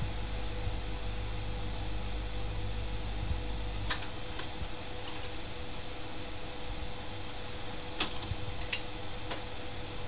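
Rock-Ola 447 jukebox changer mechanism cycling after a record has played. A low hum cuts off with a sharp click about four seconds in. Near the end, as the disc is lifted off the turntable and returned to the magazine, there is a short run of mechanical clicks.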